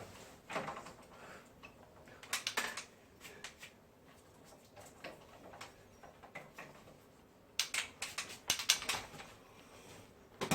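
Quick runs of light clicking and tapping from hard parts being handled, with a dense cluster about two and a half seconds in and another from about seven and a half to nine seconds.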